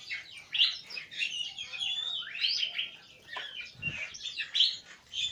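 Birds chirping rapidly: many short, high, overlapping chirps and slurred calls follow one another with hardly a pause.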